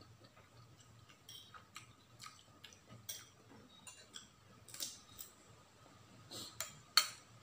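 Metal spoon clinking and scraping against a ceramic bowl during a meal, mixed with chewing and mouth sounds: a scattering of small, irregular clicks and taps, the sharpest about seven seconds in.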